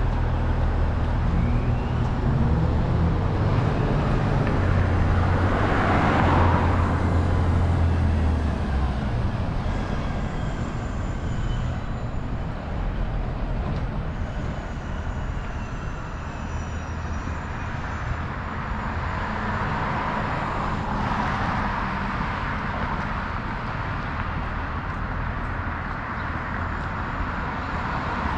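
Street traffic: vehicles passing along a busy avenue, with a low engine rumble for the first eight seconds or so and the noise of a passing car swelling and fading about six seconds in and again around twenty seconds in.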